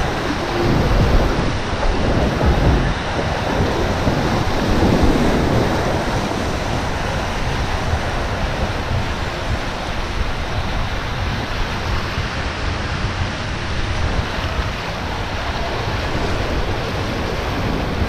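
Steady rush of fast river water, with wind buffeting the microphone.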